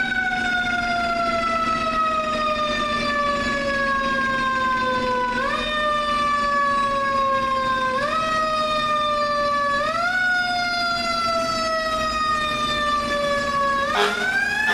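Fire engine's Federal Q mechanical siren slowly winding down in pitch, given short spin-ups about every two to three seconds so it rises and then coasts down again. Near the end it spins up sharply as an air horn sounds.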